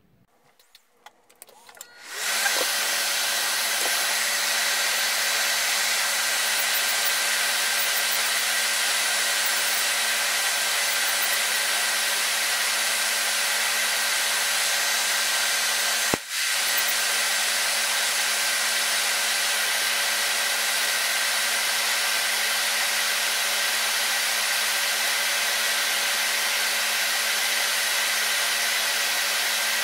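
Electric nail drill filing down an acrylic/gel nail, over the steady rush of a tabletop nail dust collector's fan, as the nails are shortened and prepared for a gel refill. The noise sets in about two seconds in and holds steady, with a brief dropout about halfway through.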